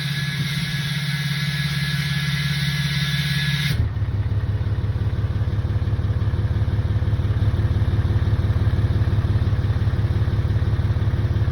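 Deleted 6.7 Cummins turbo-diesel running steadily with a high turbo whistle over the engine note. About four seconds in, the sound changes suddenly: the whistle drops away and the engine note turns louder and deeper for the rest of the time.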